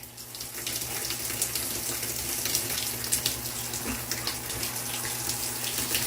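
Water running steadily from a tap, with a fine splashing.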